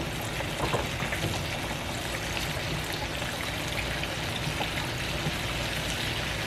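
Battered catfish fillets deep-frying in a pan of hot oil: a steady sizzle with small crackles.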